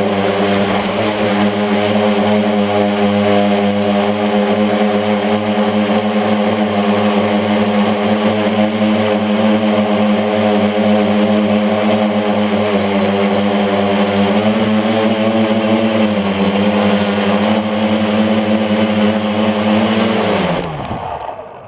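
Mini FPV tricopter's three electric motors and propellers running with a steady whine, the pitch dipping briefly part way through, then spinning down with a quick falling pitch near the end. One motor has a bent shaft, which the uploader blames for vibration.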